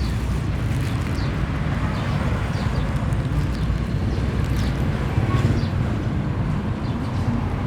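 Steady low rumble of outdoor background noise, with a few faint brief clicks or rustles.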